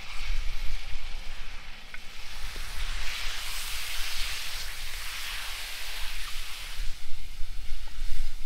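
Diced raw chicken sizzling in hot fat in a large iron wok, stirred with a wooden spatula. The sizzle swells about three seconds in and eases near the end.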